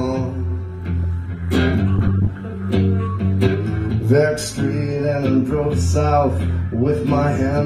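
Live rock band playing, with a prominent bass guitar line and guitar.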